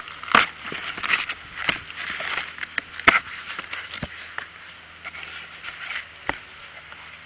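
A cardboard shipping box being opened and its contents handled: rustling and crinkling, with a few sharp knocks.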